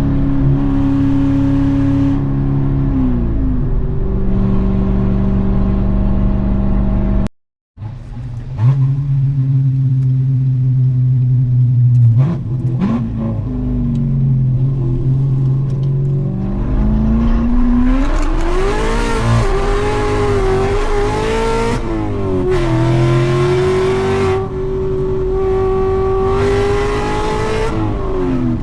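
Cammed C7 Corvette's 6.2-litre LT1 V8 under hard driving. The engine note falls as the driver lifts off, holds low, then climbs steeply under acceleration and stays at high revs before dropping again near the end. There is a brief cut to silence about seven seconds in.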